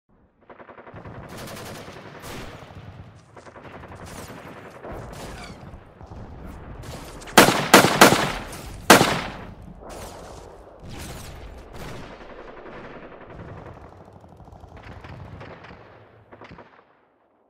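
Gunfire sound effect: rattling automatic fire, with four or five loud shots close together about halfway through, stopping shortly before the end.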